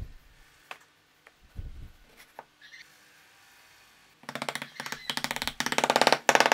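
Wooden box parts pushed together with a couple of soft low thuds and faint clicks, then from about four seconds in a small hammer taps rapidly and repeatedly on a wooden board to drive the finger joints home, the taps growing louder toward the end.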